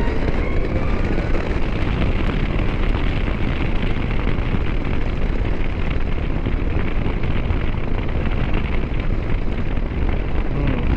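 Steady rush of wind buffeting the microphone while riding a Zero DSR-X electric motorcycle at speed. The nearly silent electric drivetrain adds no engine note.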